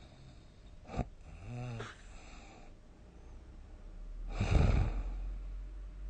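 A sleeping person snoring loudly: a sharp click about a second in, a short voiced breath just after it, then a loud snore a little past four seconds in.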